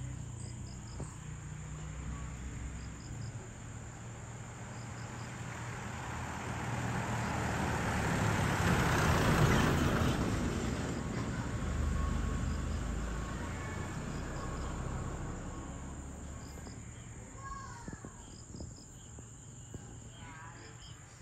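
A vehicle passes on the road: its engine and tyre noise swells to a peak about halfway through and then fades away. Under it, insects chirp steadily with a high continuous buzz, and short triple chirps repeat every couple of seconds.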